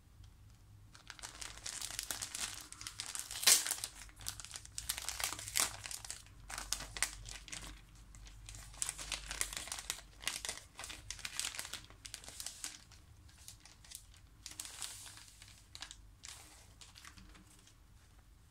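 Plastic pouch of disposable face masks crinkling as it is handled and opened, in irregular crackles with a sharp snap about three and a half seconds in; the crinkling dies away near the end.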